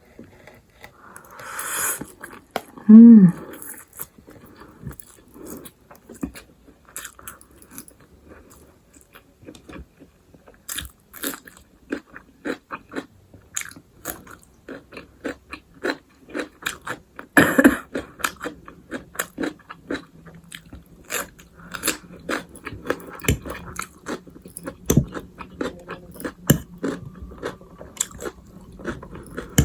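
Close-up eating sounds: biting and chewing a meal of stir-fried Wai Wai instant noodles with sausage and raw cucumber and radish, with many small clicking chews and crisp crunching bites, the loudest crunch a little past halfway. A short voiced hum about three seconds in.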